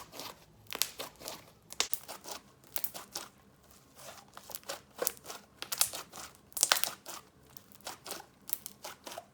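Thick, stretchy, air-inflated slime being squeezed and pressed to deflate it, its trapped air escaping in irregular crackling bubble pops and clicks, busiest and loudest in the middle.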